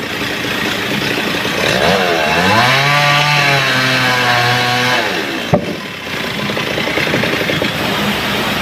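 Two-stroke chainsaw engine revving up about two seconds in, held at high speed for about three seconds, then dropping back toward idle. A single sharp knock comes about five and a half seconds in.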